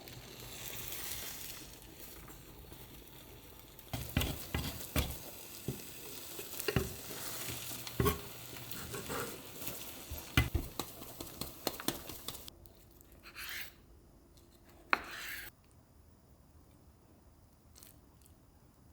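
Food sizzling in a pan while a utensil stirs it, knocking and scraping against the pan many times. About two-thirds of the way through the sizzle stops abruptly, leaving a couple of brief rustles.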